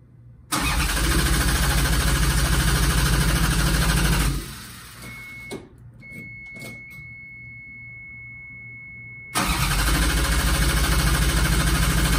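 Toyota 2GR-FE V6 cranking on the starter twice, about four seconds and then about three, without catching: a cam or crank position sensor is unplugged, so it cannot fire. Between the two attempts a steady high beep sounds.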